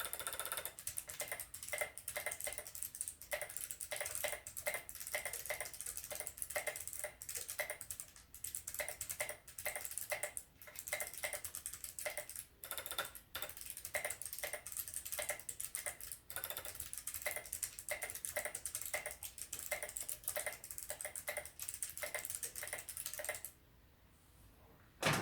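Fast, uneven typing on a KBD75 mechanical keyboard with Kailh BOX Pale Blue clicky switches and no keycaps, each keystroke a sharp click. The typing stops about two seconds before the end, followed by one loud knock.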